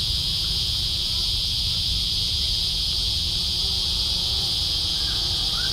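A chorus of cicadas in full voice, a loud, steady, high buzz that does not let up, over a constant low rumble.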